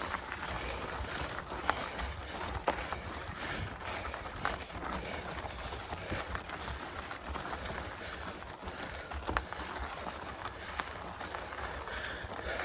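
Mountain bike being ridden up a dirt trail: tyres on dirt and gravel with scattered clicks and rattles from the bike, a steady wind rumble on the microphone, and the rider's heavy breathing.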